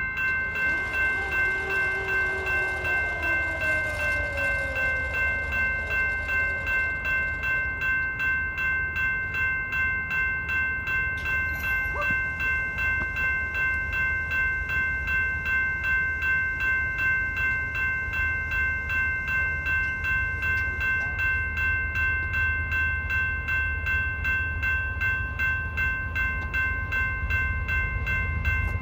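Railroad grade-crossing warning bell ringing in a steady, even rhythm while the crossing signals are active. A low rumble runs underneath, and something passes with a falling pitch in the first few seconds.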